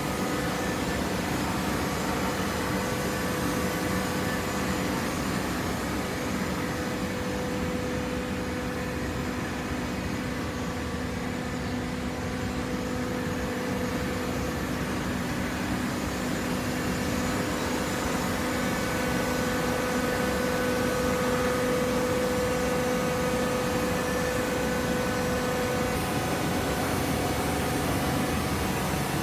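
Hydraulic cardboard baler's motor and pump running with a steady hum, growing a little louder about two-thirds of the way through.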